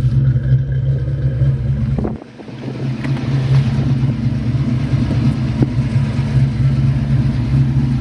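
1989 Ford Mustang's engine idling steadily. The sound drops away sharply for a moment about two seconds in, then comes back.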